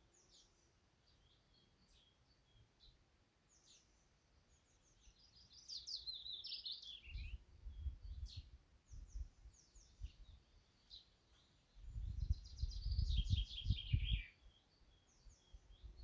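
Common chaffinch singing: two phrases of quick notes falling in pitch, about a third of the way in and again near the end, with scattered short chirps between. A low rumble rises under the song at times and is the loudest sound.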